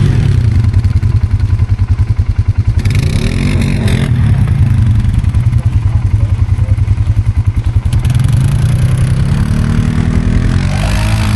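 ATV engine running under hard throttle while pushing through deep snow at a plow ridge, with a steady, rapid exhaust pulse and revs that rise and fall.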